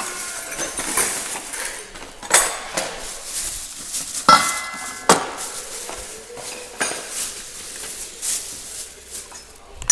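Metal hand tools clinking and clanking together as they are handled and sorted: irregular sharp metallic knocks with a short ring, the loudest about four seconds in, with lighter clinks around it.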